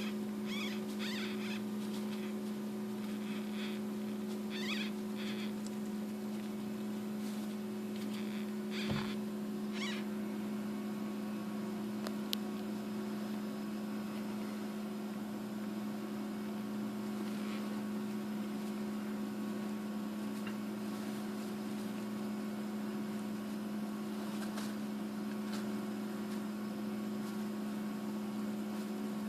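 Steady low electrical hum, with short bouts of rustling and scratching in the first ten seconds as a hamster works the bedding of its nest. A single sharp click comes about twelve seconds in.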